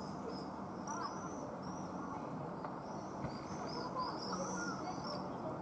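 Birds chirping in short high calls over a steady low city hum, the chirps coming thickest about four seconds in.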